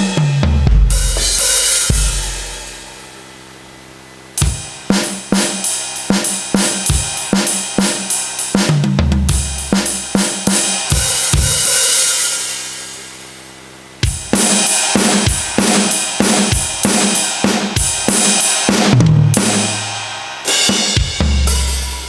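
Carlsbro OKTO A electronic percussion pad playing drum-kit sounds: three short beats of kick, snare and hi-hat, each ending in a descending tom fill and a crash cymbal left ringing and fading. The pad's different preset kits are being played through in turn.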